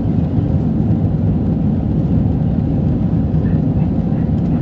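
Steady, loud jet-engine and airflow noise inside the cabin of an Airbus A320 climbing out after takeoff.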